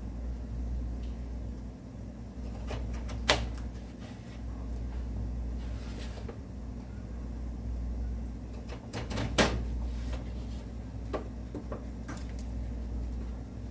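Kitchen clatter during cooking: a few sharp knocks and clacks, two of them clearly louder, over a steady low hum.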